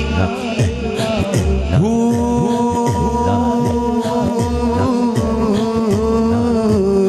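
A man singing a naat into a microphone. From about two seconds in he holds one long note for several seconds, over a steady low beat of about two to three pulses a second.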